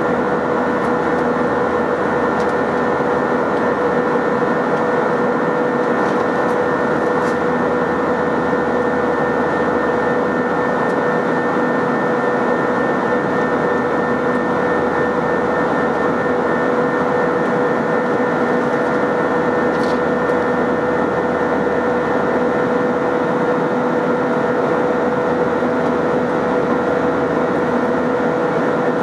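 Jet engine and airflow noise inside the cabin of an Airbus A321 climbing after takeoff: a loud, steady rush with a constant droning hum running through it.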